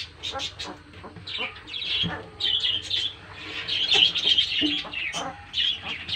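A litter of Kanni puppies whining and squeaking, with many short, high-pitched calls overlapping, busier from about two seconds in.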